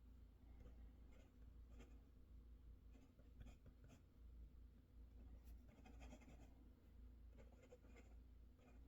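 Faint, irregular scratching and light tapping of work at a desk, like a pen writing on paper, over a steady low room hum.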